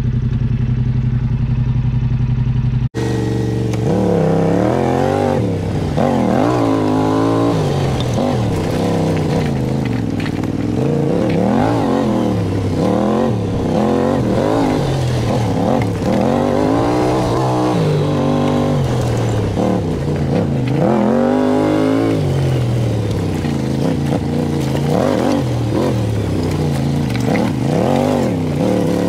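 Yamaha Ténéré adventure motorcycle engine running at a steady pitch for about three seconds. After a sudden cut it revs up and down over and over, every second or two, as the bike is ridden over a rough, rocky trail.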